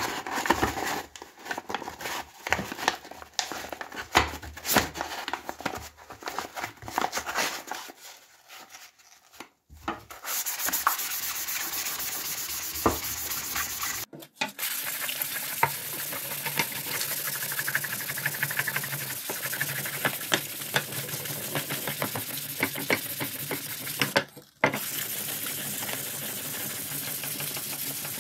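Steel machete blade being sharpened by hand with a whetstone: a steady scraping rasp of stone on steel with fine ticking, running from about ten seconds in. Before it comes a run of knocks and clicks as metal and wooden parts are handled.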